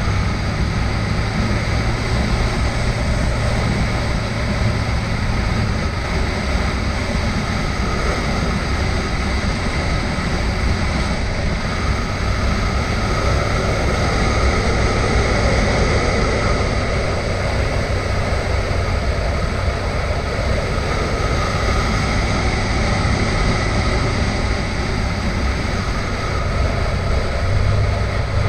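Motorcycle engine running at a steady road speed, heard from on the bike with steady wind rush over the microphone.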